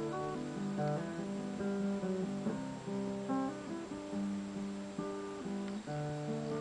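Acoustic guitar playing the instrumental intro of a song, chords changing about every half second.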